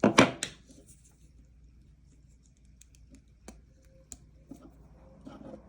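Handling noise: a brief, loud scrape or rustle at the start, then a few light clicks and taps.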